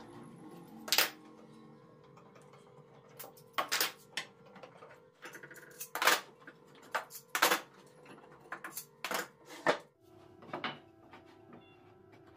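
Steel F-style bar clamps being loosened and set down on a wooden workbench: a series of irregular sharp metallic clanks and clicks, the strongest about a second in and around six and seven and a half seconds in.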